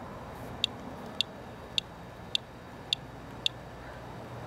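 Radalert Inspector Geiger counter clicking, about seven single sharp ticks roughly every half second. This is a slow count rate at about twice background. A steady low hum runs underneath.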